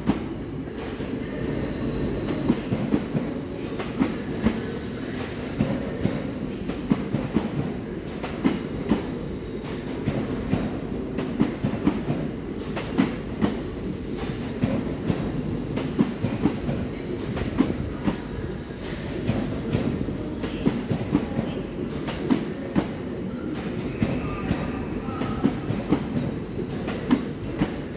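LNER Azuma train running past close by, a steady rumble from the wheels and running gear with frequent sharp clicks as the wheels cross rail joints and points. It slows as it comes in alongside the platform.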